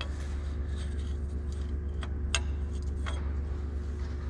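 Steady low hum with a few light clicks, the sharpest about two and a half seconds in.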